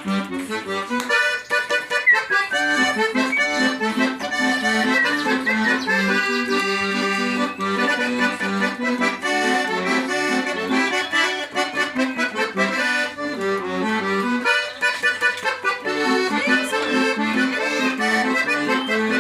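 Accordion (sanfona) playing a bandinha-style tune: a melody over a steady bass-and-chord accompaniment.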